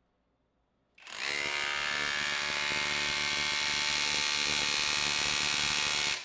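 Bauer brushless 2144C-B cordless SDS rotary hammer starting about a second in and running at full power, its hammer mechanism pounding the bit against a steel force-test fixture. It runs steadily and stops right at the end.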